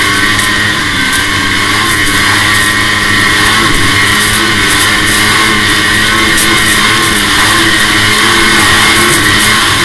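2005 Arctic Cat F6 EFI snowmobile's 600 cc two-stroke twin running steadily under way on a packed trail, its pitch wavering slightly as the throttle shifts.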